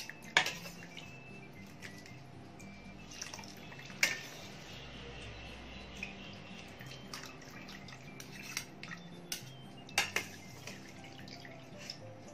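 Water dripping and splashing as potato strips are lifted out of cold water in a stainless mesh strainer, with three sharp clinks of the strainer against the steel pot, about half a second, four seconds and ten seconds in. Faint background music runs underneath.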